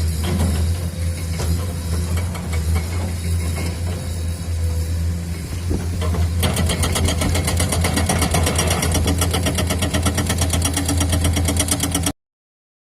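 Heavy excavator diesel engine running steadily. About halfway in, a rapid, even clatter of roughly ten knocks a second joins it, and both cut off abruptly near the end.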